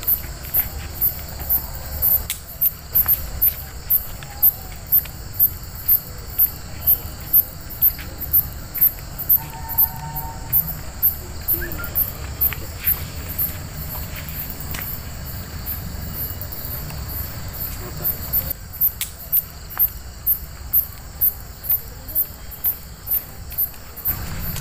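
A cricket chirping steadily at night: a very high-pitched chirp repeating evenly about two to three times a second, over a faint low rumble.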